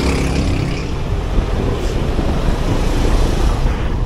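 Dense road traffic heard at close range from a bicycle filtering between vehicles: the engines of cars, a truck and a bus running close by in a steady, loud rumble.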